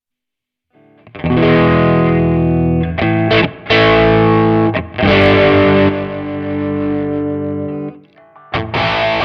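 Electric guitar, a Fender Stratocaster played through a Nux MG300 modelling processor on a distorted amp model. The chords start about a second in, ring out and break off several times, then turn to short, choppy chords near the end.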